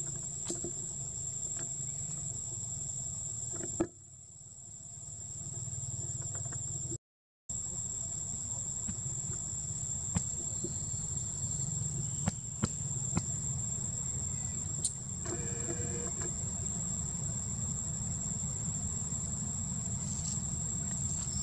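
Insects buzzing in one steady high tone over a low rumble, with a few small clicks, and a short pitched call about fifteen seconds in. The sound drops out briefly twice at edits.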